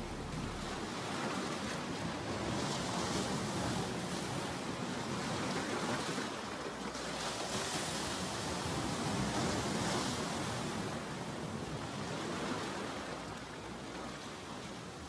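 Steady rushing noise, like surf, that swells and ebbs every few seconds and fades a little near the end.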